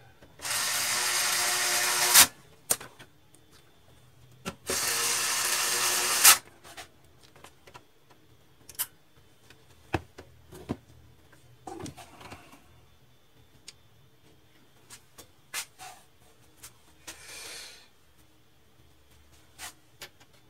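Electric screwdriver whirring in two bursts of about two seconds each, driving screws, each ending with a sharp click. Scattered light clicks and knocks follow, with a short softer whirr near the end.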